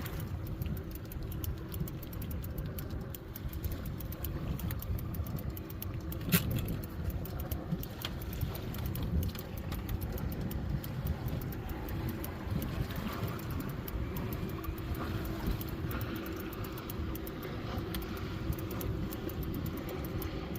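Boat motor running steadily at trolling speed: a low rumble with a faint steady hum. A single sharp click comes about six seconds in.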